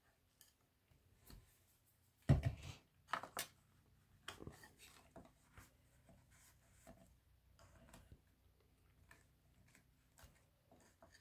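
White card being handled, folded and pressed together during gluing: scattered light rustles and crinkles of paper, with a louder knock just after two seconds in.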